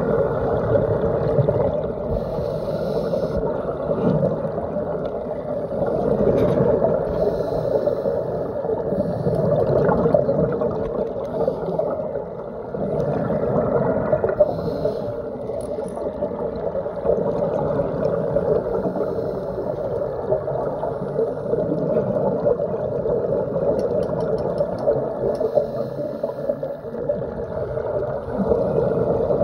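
Muffled underwater sound recorded through a phone's waterproof dive case: a steady low water rumble, with short hissing flurries every few seconds.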